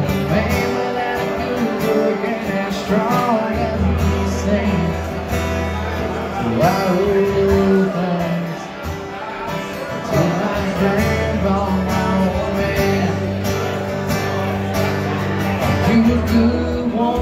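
A man singing a country song while strumming an acoustic guitar, amplified through a small PA.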